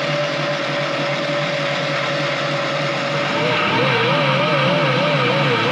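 A machine running steadily with a whining tone that begins to warble about three and a half seconds in.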